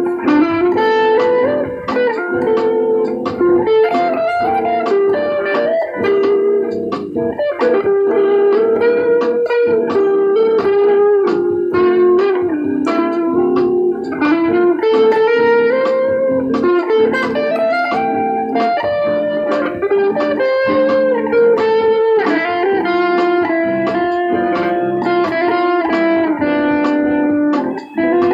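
Electric guitar improvising: a melodic line of plucked notes that slides and bends in pitch over a steadier lower note, played without a break.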